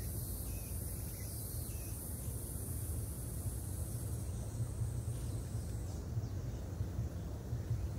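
High, shrill chirring of insects that thins out and fades about halfway through, over a steady low rumble.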